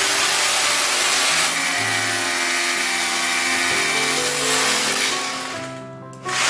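A 680-watt electric drill running at full speed off a power inverter. About five and a half seconds in it is let go and winds down, then it is switched on again just before the end.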